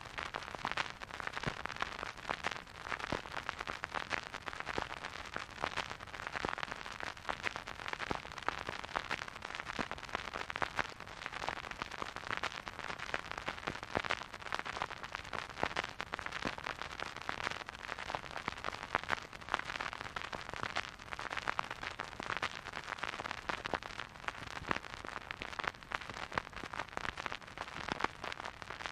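Vinyl record surface noise from a turntable stylus riding the groove with no music: a steady hiss with constant fine crackles and pops.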